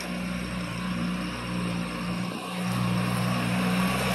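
Satoh S650G tractor's four-cylinder gasoline engine running steadily as the tractor drives, growing louder as it approaches.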